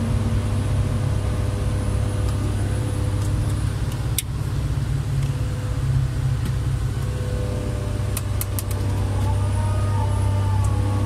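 Mobile crane's diesel engine running steadily, heard from inside the operator's cab, with a few sharp clicks and a whine that rises in pitch near the end.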